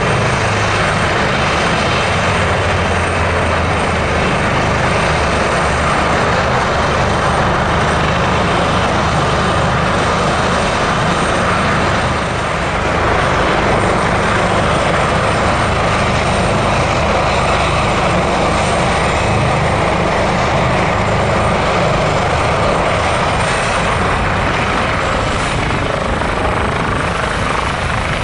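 Airbus H145 helicopter running on the pad, its twin turboshaft engines whining over the chop of the main rotor and the hum of the shrouded Fenestron tail rotor, loud and steady. Near the end a high whine climbs slightly as power comes up and it lifts into a hover.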